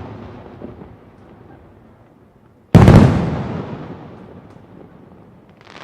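A single firework bomb (large aerial shell) bursting with a sudden, very loud bang about three seconds in, followed by a long rumbling echo that dies away over a couple of seconds. The rumbling tail of an earlier burst fades out at the start.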